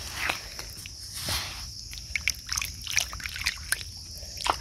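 Hands digging in wet sand and shallow muddy water: repeated squelching, scraping and small splashes. A steady high insect drone runs underneath.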